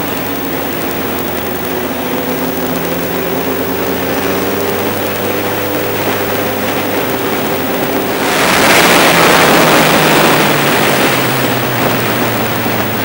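Motorcycle engine running steadily under way, its pitch slowly rising. About eight seconds in, a loud rush of wind noise sweeps over it for about three seconds, and the engine note settles lower.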